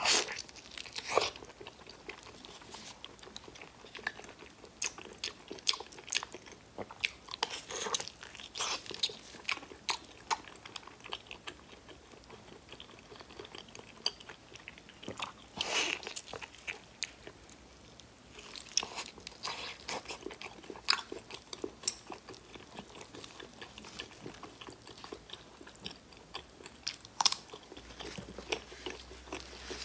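A person biting, tearing and chewing a large piece of braised meat close to the microphone: irregular clicks and smacks of mouth sounds, a few louder bites, with a short lull a little past the middle.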